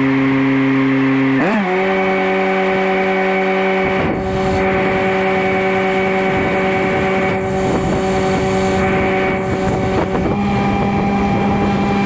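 Engine-driven arc welder running steadily, its engine stepping up in pitch about a second and a half in and again slightly near the end. From about four seconds in, the crackle and sizzle of a stick-welding arc runs over it.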